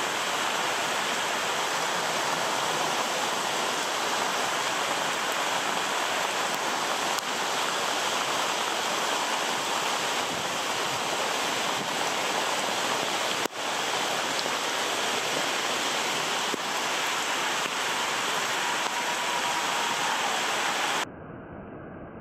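Rain pouring down in a steady hiss, cutting off abruptly near the end.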